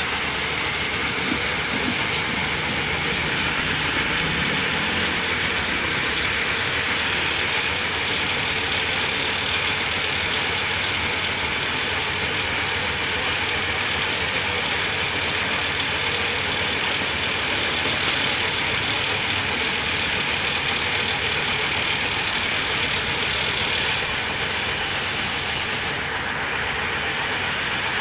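Small silage round baler and wrapper running, a steady, unbroken mechanical noise.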